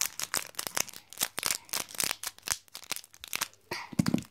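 Foil blind bag crinkling as it is cut open with scissors and pulled apart by hand: a dense run of crackles, with a short dull thud near the end.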